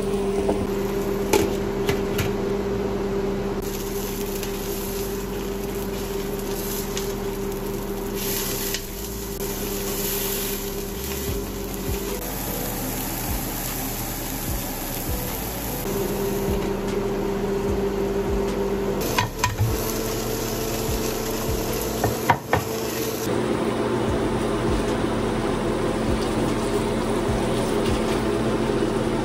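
Ground-beef burger patties sizzling and frying in a stainless steel skillet, over a steady low hum. A spatula clicks and scrapes against the pan a few times, about two-thirds of the way through.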